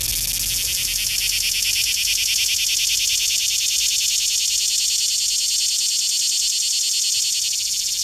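A cicada singing: one steady, high, rapidly pulsing buzz, made by the vibrating tymbal membranes on its abdomen rather than by rubbing its wings.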